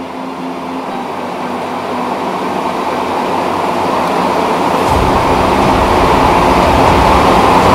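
A rising noise swell in the show's soundtrack music, growing steadily louder, with a low rumble joining about five seconds in as it builds toward the beat.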